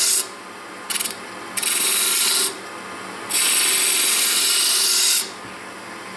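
Spindle gouge cutting a cove into wood spinning on a lathe: a hiss of shaving wood in several passes of a second or two each, dropping back to the quieter running lathe between cuts.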